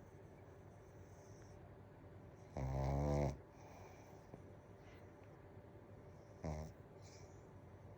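Black pug snoring twice, a long snore about two and a half seconds in and a shorter one near the end, while the dog is still awake.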